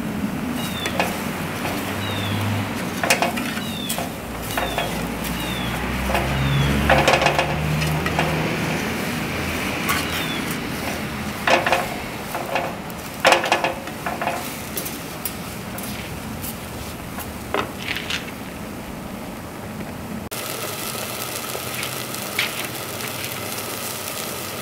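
Wooden spoon stirring and scraping onions frying in oil in a clay pot, with repeated knocks of the spoon against the pot over a steady sizzle, as the new pot is seasoned. The stirring stops about twenty seconds in, leaving the sizzle.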